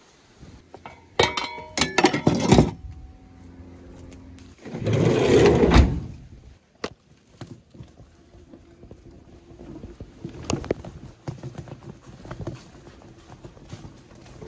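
Garden spades being handled and knocked together, a quick run of sharp clatters with short ringing. After that comes a loud rushing noise about a second long, then faint scattered ticks and crackles.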